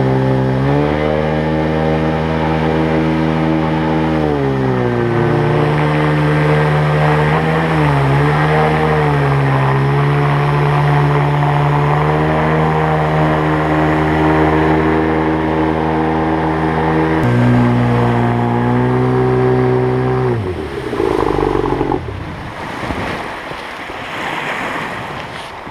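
Mercury 25 jet outboard driving a tunnel-hull jet boat upstream, its engine pitch rising and dipping with the throttle. About 17 seconds in it drops to a lower speed, and a few seconds later it dies away, leaving the rush of the river.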